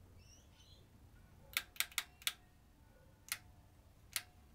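Six sharp clicks from a rotary switch on the front panel of a Telequipment D43 valve oscilloscope being turned through its detents. Four come in quick succession about a second and a half in, then two single ones about a second apart, over a low steady hum.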